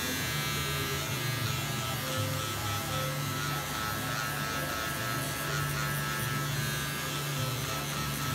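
Electric hair clippers running with a steady buzz while cutting short hair, the hum wavering slightly in pitch.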